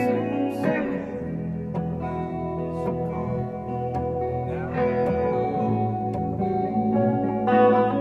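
A small live band playing without drums: electric guitars and a keyboard sounding held, layered chords with plucked notes over them.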